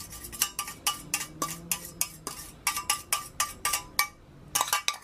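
Metal tongs clinking and scraping against a stainless steel pan, scraping out the last of a thick sauce: a quick, irregular run of ringing metallic clinks that pauses briefly near the end before a few more.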